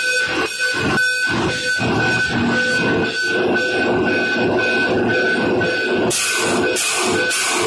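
Ship's engine-room machinery running with a steady whine and a regular pulsing about three times a second. About six seconds in, sharp hisses of air start coming about twice a second: the exhaust of an air-operated double-diaphragm pump cycling.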